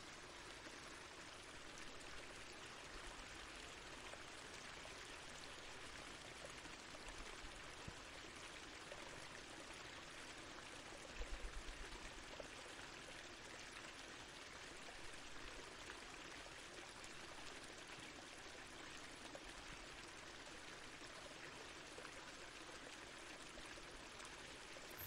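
Live electronic noise performance: a steady, water-like hiss of noise, with a brief quick run of low thumps about eleven seconds in.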